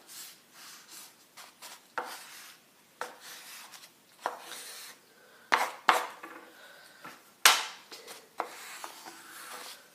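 Colored pencil scratching across a paper tube on a wooden table in short, irregular strokes, with a few sharp taps, the loudest about seven and a half seconds in.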